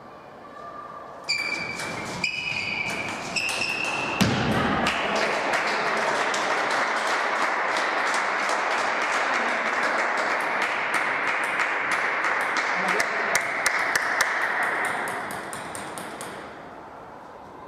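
A table tennis ball bouncing a few times with a clear ping, then a heavy thump about four seconds in. After that comes a long stretch of loud, even rushing noise with many sharp clicks in it, fading out a couple of seconds before the end.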